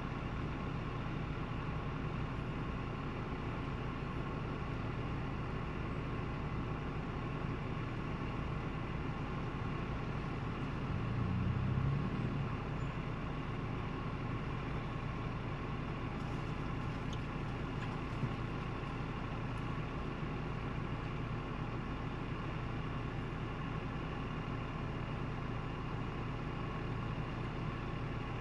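Ford Bronco's engine running at crawling speed on a rocky trail, a steady low drone, swelling briefly about eleven to twelve seconds in as the throttle is pushed; a single faint click comes near eighteen seconds.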